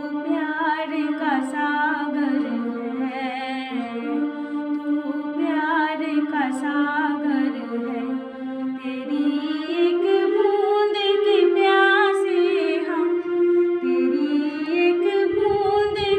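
A woman singing a slow devotional melody solo, with long held notes that glide from pitch to pitch and waver with vibrato.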